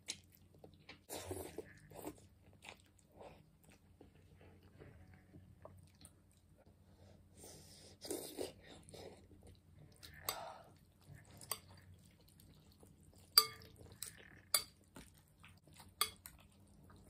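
A person eating noodles, with soft slurping and chewing. In the second half, several sharp clinks of a metal fork against a glass bowl.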